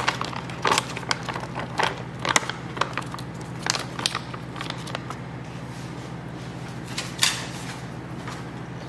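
Resealable pouch of turkey sausage crumbles crinkling and rustling as it is shaken out over a bowl, with irregular crackles and patters of crumbles falling in, mostly in the first five seconds and once more near the end. A steady low hum runs underneath.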